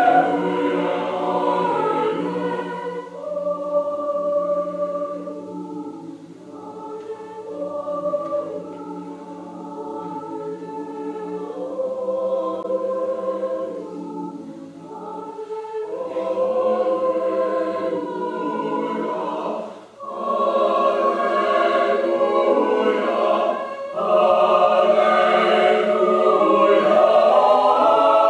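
A choir singing a sustained, slow-moving choral piece, softer in the middle and swelling louder near the end.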